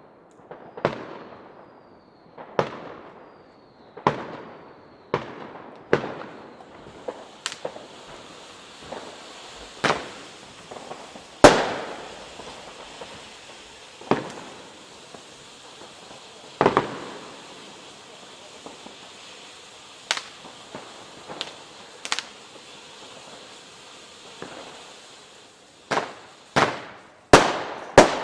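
Firework fan cake (Funke Fireworks Feuerwand Brokat-Rotblinker) firing its shots one after another, each a sharp bang with a short fading tail, roughly every one to two seconds. From about seven seconds in, a steady hiss runs behind the shots, and a quick cluster of the loudest bangs comes near the end.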